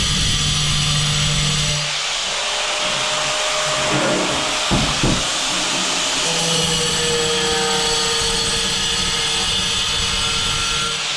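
Angle grinder running as it cuts a hole in a hard tile. Its steady motor tone fades from about two seconds in, with two sharp knocks around five seconds, then returns at about six and a half seconds.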